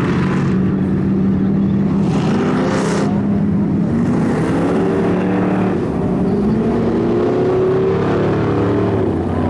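Race car engines running hard on track, the engine notes rising and falling as the cars accelerate, lift and pass, with short rushes of higher noise about two to three seconds in.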